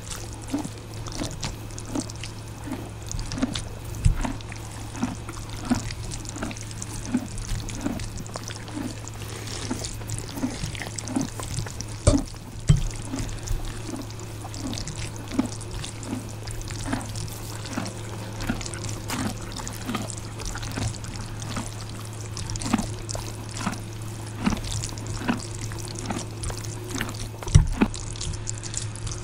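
Close-up eating sounds of extra-spicy instant ramen: wet slurps and steady chewing about one and a half times a second, with sharp clicks of a metal fork on the plate. A steady low hum runs underneath, and near the end there is a knock and a sip from a ceramic mug.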